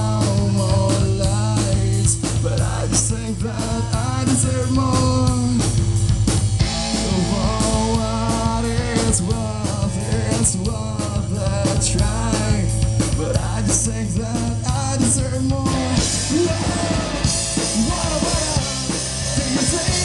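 Live rock band playing: sung vocals over electric guitar and a drum kit with regular drum hits and Paiste cymbals. About three-quarters of the way through, the cymbal wash grows louder and brighter.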